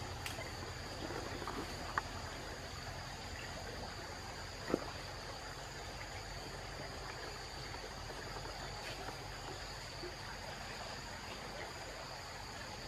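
Insects droning steadily in the undergrowth at two high pitches over a soft hiss, with two short sharp knocks, the louder one about five seconds in.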